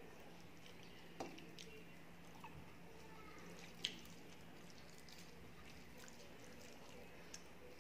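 Fingers mixing rice and picking at fried fish on a metal plate: a few faint, scattered wet clicks, the clearest about four seconds in, over a low steady hum.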